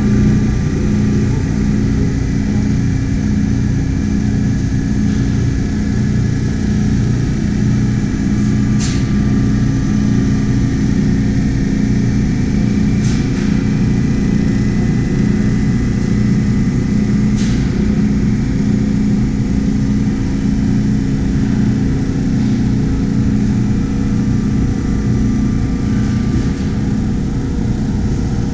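Carter Day fractionating aspirator running: its electric motor and impeller fan give a loud, steady hum with a few steady whining tones above it. Three light ticks come in the middle.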